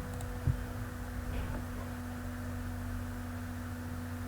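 A steady low electrical hum with a few held tones under faint hiss, and one soft knock about half a second in.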